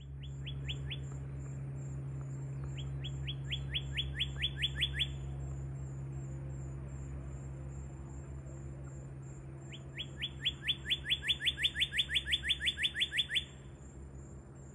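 Male northern cardinal singing: runs of fast, repeated down-slurred whistles, a short run at the start, a longer one about three seconds in, and the longest, about twenty notes, from about ten seconds in. A steady low hum runs underneath.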